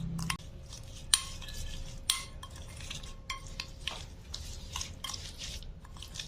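A spoon stirring and scraping a wet spice paste in a bowl, with light clinks of the spoon against the bowl and two sharper knocks about one and two seconds in.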